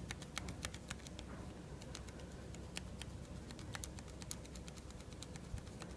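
Faint, irregular little ticks and rustles of cotton crochet thread being wound by hand, several times round, onto the tip of a plastic-coated wire to build a small ball.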